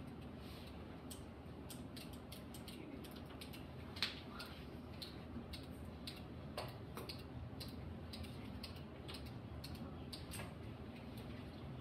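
Quiet classroom with faint, irregular small clicks and ticks over a low hum, and one sharper click about four seconds in.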